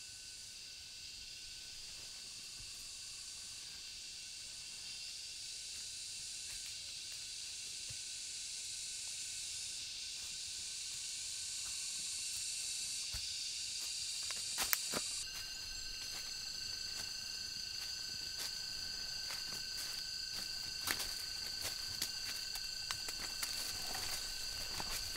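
A steady, high-pitched chorus of forest insects, cicadas or crickets, that changes abruptly about halfway through. From about halfway on, scattered sharp crackles and snaps of footsteps on dry bamboo leaf litter.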